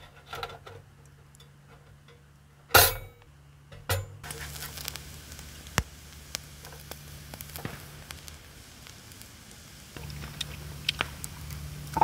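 A metal grill plate clanks sharply down onto a titanium wood stove. Then meat sizzles on the perforated grate over the coals, with metal tongs ticking against it now and then.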